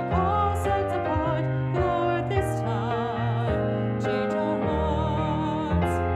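Music: a single voice sings held notes with a wide vibrato over sustained keyboard accompaniment, in the manner of a slow church hymn.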